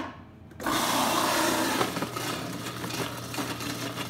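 Commercial food processor with a grating disc running, shredding raw potatoes pushed down its feed chute. It starts about half a second in as a steady motor hum under the noise of the grating, loudest over the first second or so.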